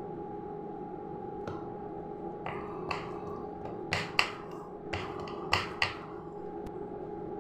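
Short, sharp taps and clicks from handling the stuffed paratha dough on the kitchen counter, about eight in all, bunched around the middle. A steady electrical hum runs underneath.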